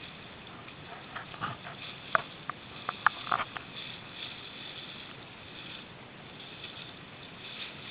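Choppy water splashing right at the camera, with a run of sharp splashes and knocks between about one and three and a half seconds in, over a steady rush of wind and waves.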